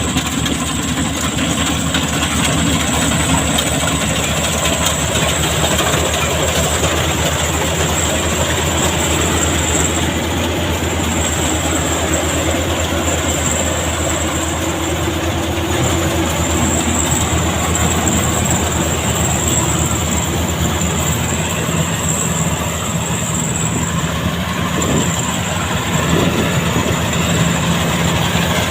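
An old engine running steadily and loud throughout, a low hum under a busy mechanical clatter, with a thin high-pitched whine held above it.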